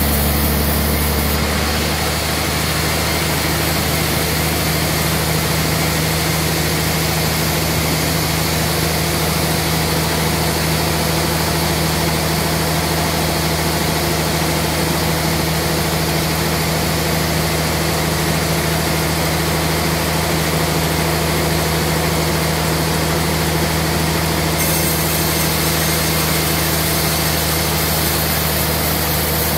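Large band sawmill cutting lengthwise through a trembesi (rain tree) log: a steady, dense sawing noise from the blade in the wood over the low hum of the saw's motor.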